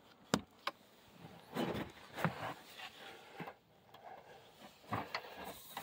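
A carpeted wooden floor hatch in a boat cabin being handled and set aside: a couple of sharp knocks and clicks, then scuffing and rustling.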